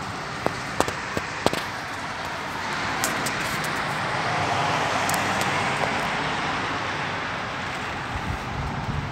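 Sandstorm ambience: a steady rush of wind and road traffic that swells for a few seconds in the middle, with a few sharp clicks in the first couple of seconds.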